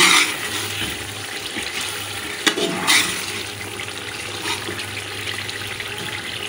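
Potatoes in masala gravy bubbling in a large aluminium pot while a ladle stirs through them to check that they are cooked, with a few sharp knocks of the ladle against the pot near the start and about two and a half to three seconds in.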